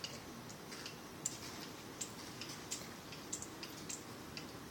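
Faint, irregular light clicks, about one or two a second, from a plastic toy water gun being worked.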